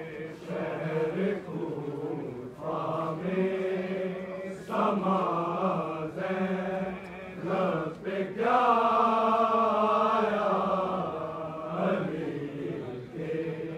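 Men's mourning chant, sung in phrases a few seconds long. The longest phrase is held from about eight to twelve seconds in.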